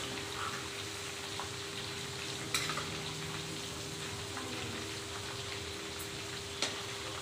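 Chicken pieces deep-frying in hot oil in a metal kadhai, a steady bubbling sizzle, on their second fry to turn crisp, while a spoon stirs them. The spoon knocks against the pan twice, about two and a half seconds in and again near the end.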